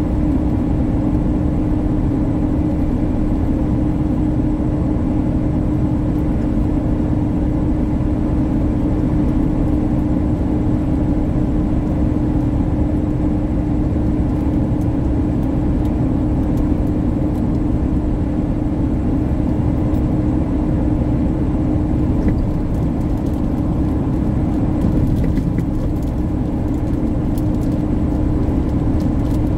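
Tractor-trailer cruising at highway speed, heard inside the cab: a steady low rumble of engine and road noise with one constant hum running through it.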